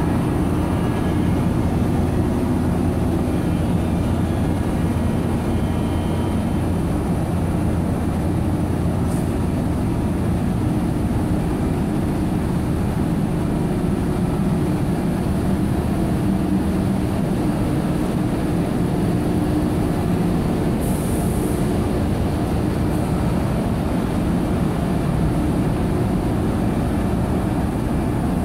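Steady, loud drone of a running polypropylene staple fiber dry setting line: the dryer's belt-driven centrifugal blowers and motors, a low hum with a few held tones.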